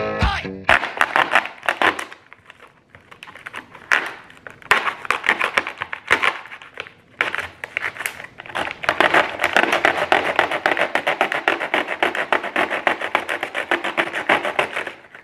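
Rapid crackling and clicking as a kitchen knife cuts into a red item over a tiled counter, coming in short runs at first, then a long fast run through the second half.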